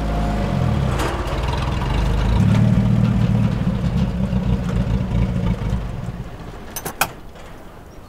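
A vintage sedan's engine running as the car drives up and comes to a stop, its low rumble fading out about six seconds in. Near the end, a couple of sharp clicks of the car's door latch opening.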